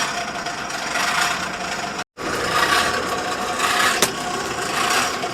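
Forge blower being pumped, a steady mechanical whirr with a rhythmic swell, driving air through a pipe into the charcoal fire to raise the embers. The sound breaks off for a moment about two seconds in, and a single sharp click comes near the four-second mark.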